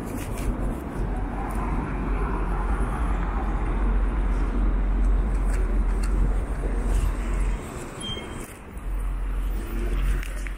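City street traffic at an intersection: cars driving past with a steady road noise that eases off briefly about eight seconds in.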